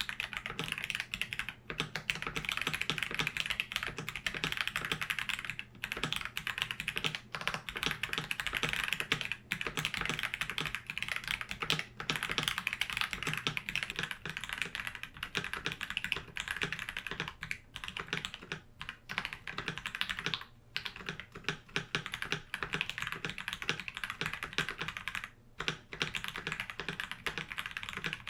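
Steady, fast typing on a KBD67 Lite R3 mechanical keyboard with Akko sponge tactile switches: a dense run of keystroke clacks with a few short pauses between bursts.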